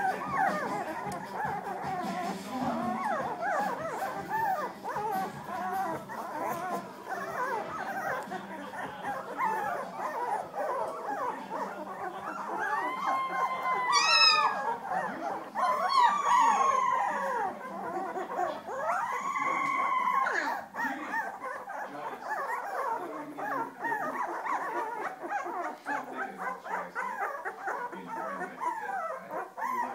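Young puppies whimpering and squealing, many high cries overlapping without pause. Around the middle, a few louder, drawn-out howling cries stand out.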